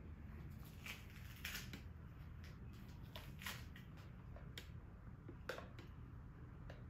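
Faint, irregular clicks and light taps, about ten of them, over a low steady hum. The sharpest tap comes about five and a half seconds in.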